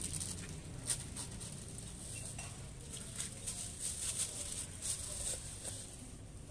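Pot of broth boiling hard, the bubbles popping in an irregular patter of small clicks over a low steady hum.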